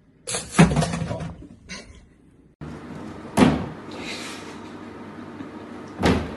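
Domestic cat sneezing: three sharp sneezes, about half a second in, about three and a half seconds in, and near the end.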